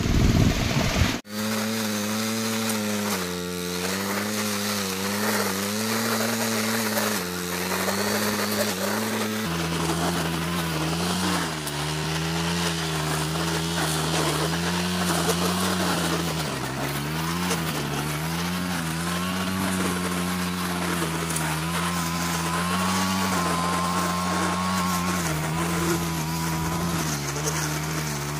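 Backpack brush cutter's small engine running while cutting grass and weeds, its pitch wavering up and down as the cutting head takes the load. It breaks off briefly about a second in, then settles to a lower pitch about ten seconds in.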